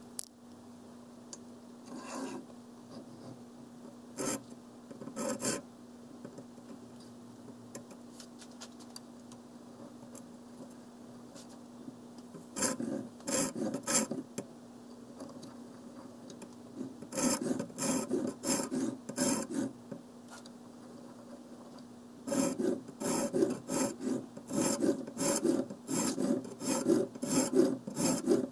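Cylindrical diamond sharpening rod scraping back and forth in the serrations of a bread knife, a rasping sound at about two strokes a second. It comes in three bursts in the second half, after a few single scrapes early on.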